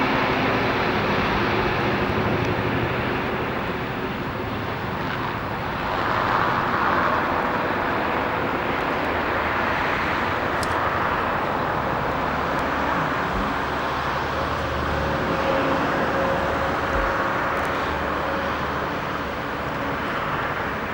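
Diesel train running, a steady mechanical noise with a few faint steady tones, swelling briefly about six seconds in.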